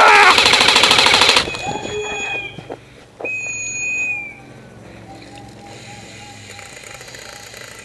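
Airsoft electric gun firing a full-auto burst, a fast rattling of shots for about a second and a half. Two brief high tones follow, then a quieter background.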